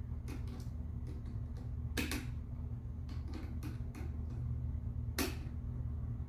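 Needle-nose pliers pinching a ground-wire hook tight around an outlet's screw terminal: a few sharp metal clicks and ticks, the loudest about two seconds in and again about five seconds in, over a steady low hum.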